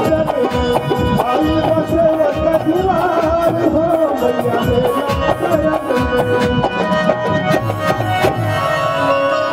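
Live Bhojpuri folk band playing an instrumental passage: steady dholak drum beats under a wavering melody on keyboard.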